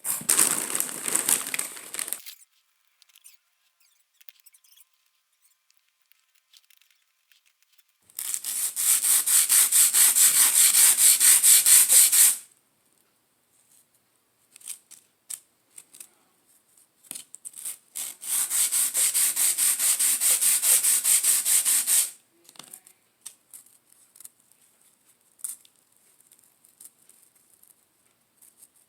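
Fast, evenly repeated rasping or scraping, like sanding or filing. It comes in two spells of about four seconds each, after a shorter burst at the start, with light clicks and taps in between.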